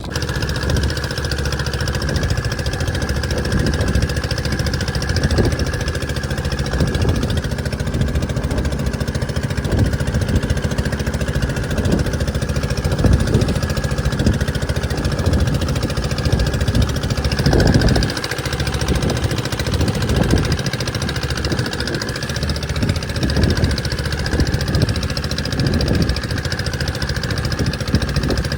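Boat engine running steadily, with irregular low thumps under it.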